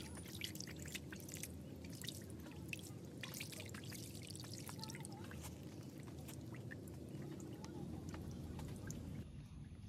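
Water scooped by hand from shallow standing water and splashed over a potted bonsai on a rock, with many irregular drips and splashes falling onto the leaves, rock and water surface. The dripping stops abruptly near the end.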